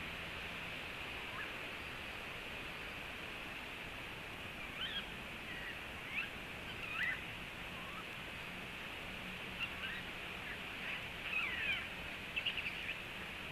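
Scattered short bird calls, thin chirps and quick whistled glides, with a fast run of notes near the end, over a steady hiss.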